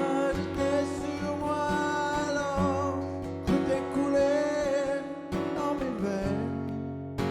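Acoustic guitar strummed steadily while a man sings two long, held phrases over it.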